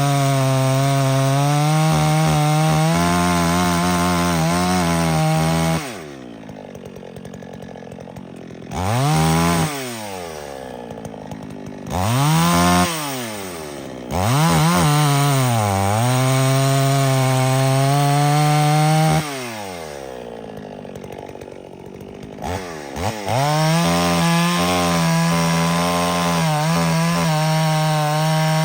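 Chainsaw running at full throttle, dropping back to idle twice and blipped up in short revs in between, with brief dips in pitch as it loads in the wood.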